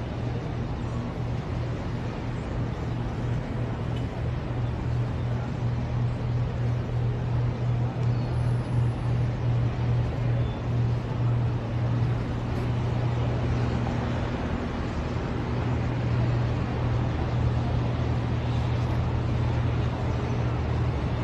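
Steady road traffic noise with a continuous low engine hum, getting slightly louder near the end.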